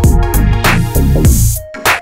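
Electronic background music with a drum-machine beat and bass.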